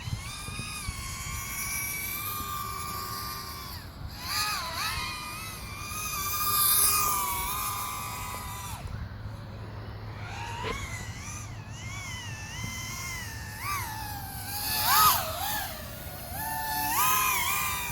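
5-inch FPV racing quadcopter with Emax RS2205 2300 kV motors and Gemfan 5x4x3 three-blade props on 4S, its motors and props whining, the pitch swooping up and down constantly with throttle. Two louder surges, one before halfway and one past three-quarters.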